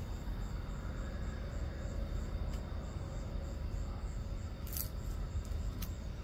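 Crickets chirping steadily, about two chirps a second, over a low, even rumble. A few sharp clicks sound in the second half.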